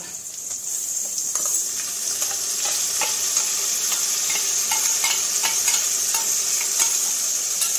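Sliced onions, bay leaves and whole spices frying in hot oil in an aluminium kadai, sizzling steadily with scattered crackles and pops around a freshly added wet ginger, garlic and onion paste. The sizzle grows louder over the first second or so, then holds.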